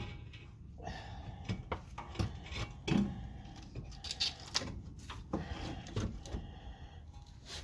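Hand tools and brake parts knocking, clinking and scraping against each other as a rear brake caliper is worked off: about a dozen scattered short knocks with brief rubbing sounds between them.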